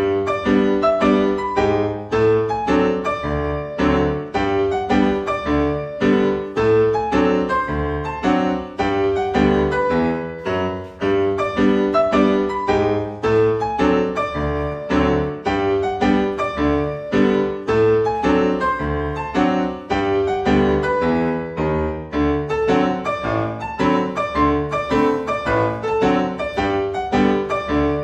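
Cha-cha-cha dance music led by piano, with a steady beat of struck chords and bass notes.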